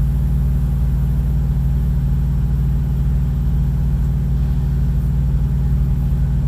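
Diesel engine of a semi truck idling: a steady low rumble that holds even throughout.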